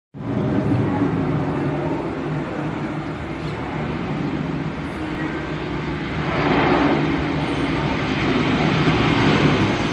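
Boeing 737 airliner on final approach, its jet engines a steady rumble with a low hum that swells louder about six seconds in as the plane draws near.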